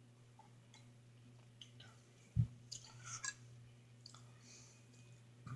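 Faint chewing with small wet mouth clicks as a mouthful of eggs and tomato is eaten, with a single low thump about two and a half seconds in.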